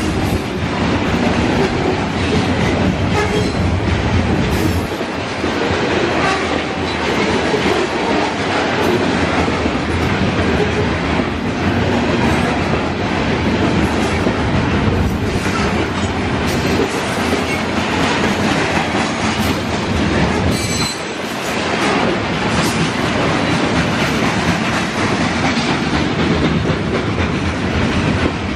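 Long freight train of covered grain hopper cars rolling past close by: a steady rumble and clickety-clack of steel wheels on the rails, with a brief high squeal from the wheels about twenty seconds in.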